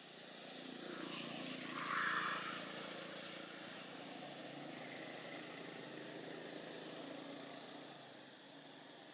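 A motor vehicle running by, loudest about two seconds in and dropping away near the end.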